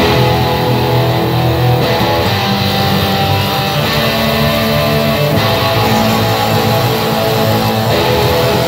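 Background music led by guitar, with held chords that change every couple of seconds.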